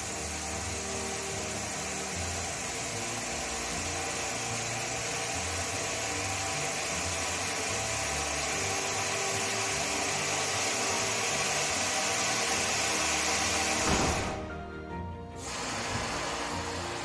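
Background music over a steady hiss of compressed air from the pneumatic cylinders tilting up the butterfly table. The hiss slowly grows louder, breaks off with a knock near the end, and comes back about a second later.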